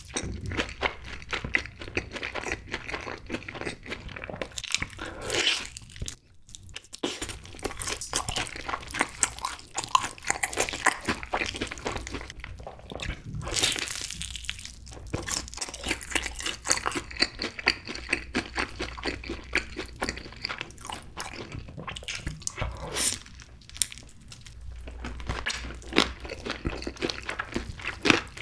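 Close-miked biting and chewing of sweet-and-spicy sauced (yangnyeom) fried chicken drumsticks, the crisp batter crunching over and over with each bite and chew.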